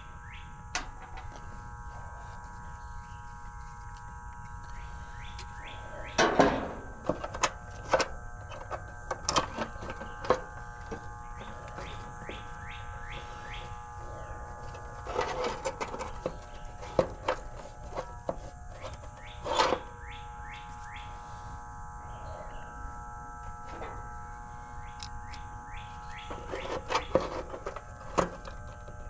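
Intermittent clicks and knocks from tools and parts being handled, in small clusters, with birds chirping in the background.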